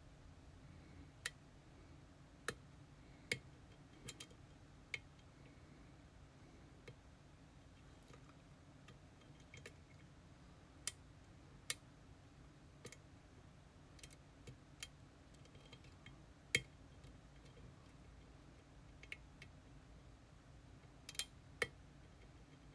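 Irregular sharp metallic clicks and ticks of lock picks working inside a master-keyed EVVA Dual dimple lock cylinder, spaced unevenly with small clusters, a couple of louder clicks near the end.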